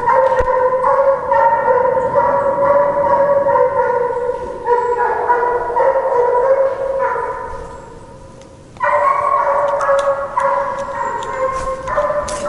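Hunting hounds baying on a fox's trail: a run of long, loud calls one after another, with a brief lull about eight seconds in. The hounds are giving voice as they work out the trail.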